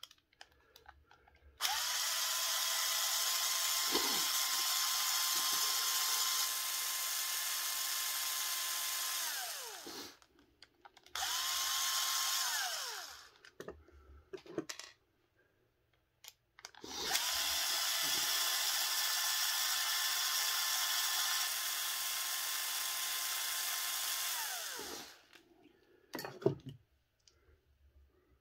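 Cordless power screwdriver running in three bursts, about eight seconds, then a short two-second one, then about eight seconds again, each spinning up quickly to a steady whine and winding down at its end, backing screws out of an RC car transmission case.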